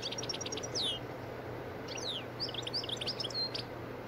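A small bird twittering: rapid runs of short, high chirps that each slide down in pitch, in two bursts, the first in the opening second and the second from about two seconds in, over a steady low hum and hiss.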